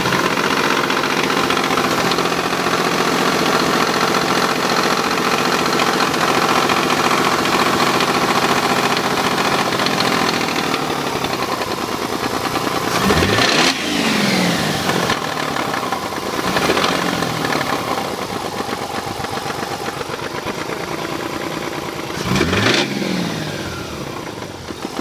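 Mazda RX-8's rotary engine running with a horrible engine noise: it holds a steady speed, drops back toward idle, then is revved quickly three times, the pitch rising and falling each time, the first and last revs the strongest.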